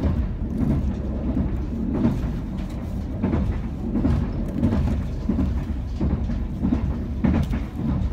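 Steady low rumble of a moving passenger train heard from inside the carriage, with irregular knocks and clatters about every half second.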